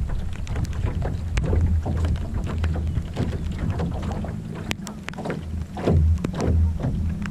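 Wind buffeting the microphone in gusts, with choppy water lapping and slapping against a small boat's hull and scattered sharp ticks.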